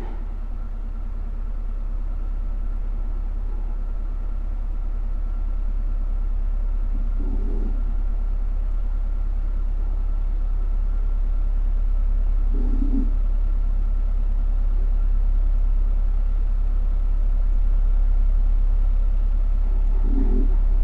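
Heat pump system running with a steady low rumble and a faint steady tone, slowly building in level, with three soft knocks at uneven intervals.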